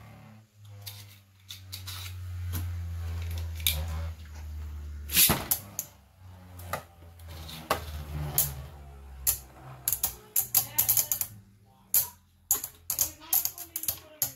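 Beyblade Burst spinning tops in a plastic stadium: a low steady whir of a top spinning on the stadium floor, a sharp knock about five seconds in as a second top lands, then from about ten seconds rapid clacking as the two tops strike each other.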